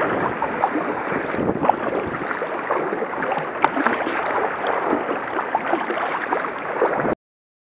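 Water splashing and lapping around a sea kayak as it is paddled through choppy water, with irregular small splashes from the paddle strokes. The sound cuts off suddenly about seven seconds in.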